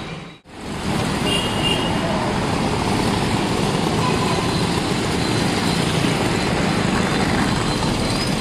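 Steady rumble and road noise of a moving road vehicle, with no horn heard. The sound drops out briefly about half a second in, then comes back and holds level.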